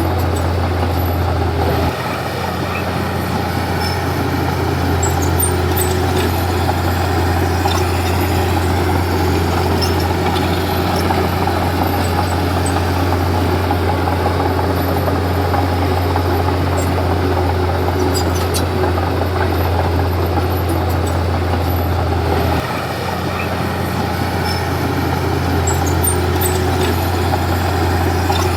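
Komatsu D31P bulldozer's diesel engine running steadily under work, its low note dropping slightly about two seconds in and again briefly near the end.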